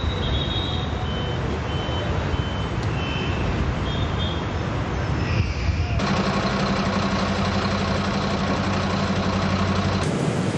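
Outdoor vehicle noise: engine running, with a run of short, evenly spaced high beeps in the first half. About six seconds in it changes abruptly to a steady low engine hum.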